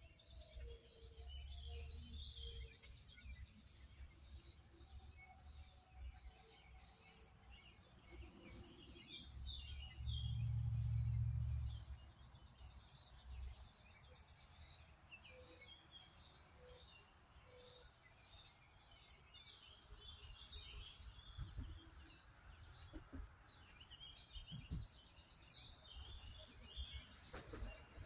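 Songbirds singing and chirping, with a high trill of about two seconds heard three times, about twelve seconds apart. A low rumble swells about ten seconds in and is the loudest sound for a couple of seconds.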